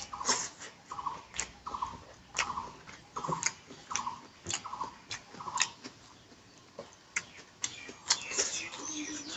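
Close-up eating sounds: chewing with sharp, wet mouth clicks and smacks, one or two a second.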